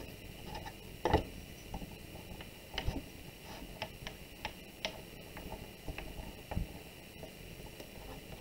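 Hands working a slab of clay on a wooden board: scattered light taps and knocks as palms and a wooden dowel press the clay flat against the wood, with a duller thump about six and a half seconds in.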